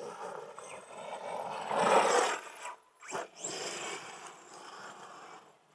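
Losi DBXL-E 2.0 electric 1/5-scale RC buggy driving on loose dirt, its motor and tyres swelling to loudest about two seconds in. The sound breaks off abruptly just before three seconds, then goes on more quietly.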